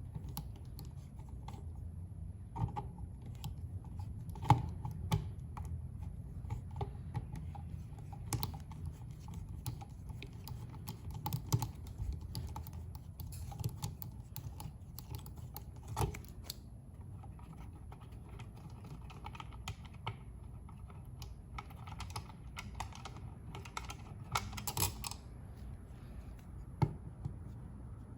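Screwdriver work on a wall outlet: irregular small clicks, taps and scrapes of metal and plastic as the mounting screws are backed out and the outlet is worked loose from its box.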